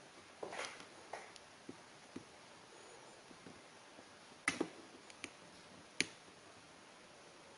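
Scattered short, sharp clicks and light taps, about eight in all, the loudest about four and a half and six seconds in.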